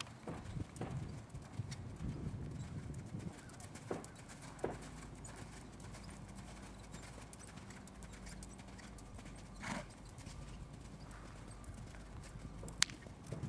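Hoofbeats of a young Holsteiner–Thoroughbred mare trotting under saddle on sand arena footing: soft, irregular thuds, with a few sharper clicks and one sharp click near the end.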